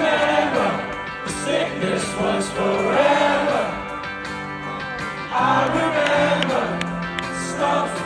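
A live rock band heard from the crowd: a male lead singer's voice over electric guitar, bass and cymbals.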